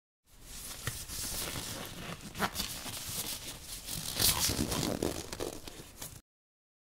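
Handling noise of fingers working a red rubber O-ring onto a small glass cylinder: a dry, rustling scrape with scattered small clicks. It cuts off suddenly shortly before the end.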